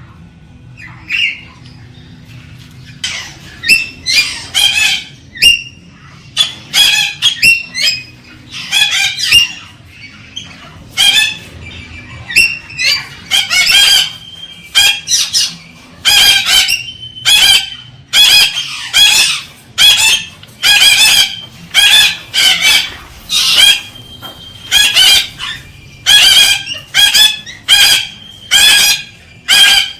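Galah (rose-breasted cockatoo) calling over and over in short, loud, high-pitched calls, about one or two a second, after a single faint call near the start.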